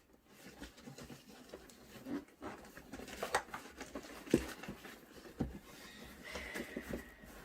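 Rustling and light knocks of toys and their packaging being handled, with a sharper knock a little past halfway.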